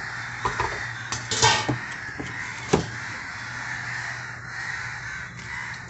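Crows cawing over a steady chatter of many birds gathering to roost for the evening, with a sharp tap near the middle.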